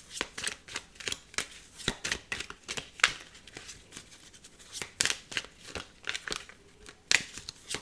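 A tarot deck being handled as cards are drawn off the top: irregular snaps, flicks and slides of card stock, the sharpest about three seconds in.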